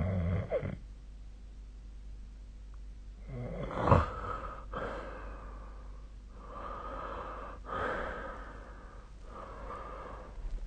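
A sleeping person snoring and breathing heavily: a low snore right at the start, a sharp snort about four seconds in, then three noisy, airy breaths.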